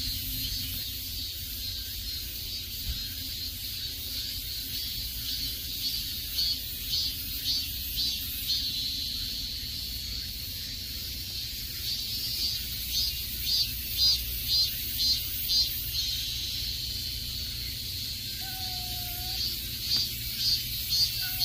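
Insects droning in the woodland, a high pulsing chorus that beats about two or three times a second and swells in the middle. Two short pitched calls come near the end.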